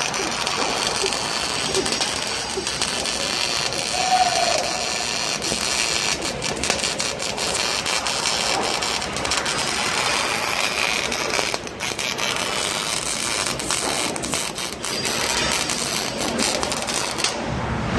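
MIG welding arc crackling steadily while a vertical-up weld is run with a whip-and-pause motion. The arc stops just before the end.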